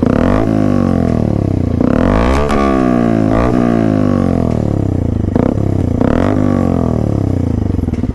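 Bajaj Avenger 160's single-cylinder engine revved repeatedly through an aftermarket chrome dual exhaust, the revs rising sharply and falling back about five times.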